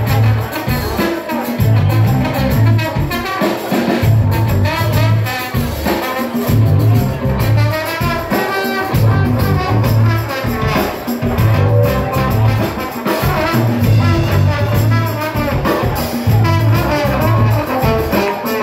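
Live band playing with a horn section of saxophone and trumpet over drums and electric guitar, a bass line repeating in short phrases about once a second.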